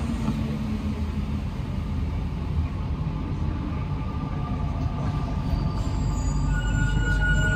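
Inside a rubber-tyred Alstom NS-93 metro car: a steady low rumble of the train. Near the end a thin, high, steady whine comes in over it as the sound grows a little louder.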